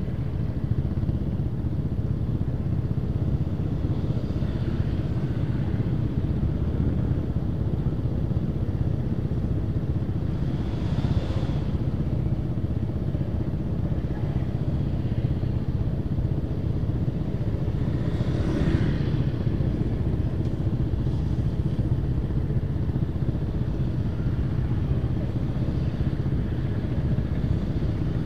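Motor scooters idling at a traffic light, a steady low engine rumble with traffic around, and two brief higher sounds around the middle.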